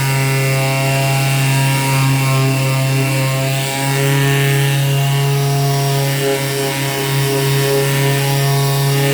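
A 500-watt electric half-sheet sander running steadily with a loud, even hum and a scratchy edge, powered by an 800-watt inverter generator that is carrying its load.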